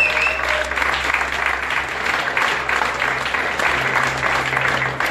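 Audience clapping, with one high cheer trailing off in the first half second; the clapping thins out near the end.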